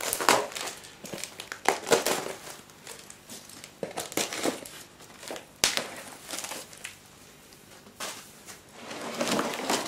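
Packing tape on a cardboard box being slit with a knife and a foam sheet pulled off: irregular rustling and crinkling of tape and plastic, with several sharp scrapes.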